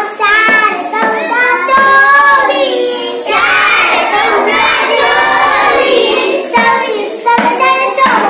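A young girl chanting a number table in Marathi in a sing-song voice, reading it across the rows.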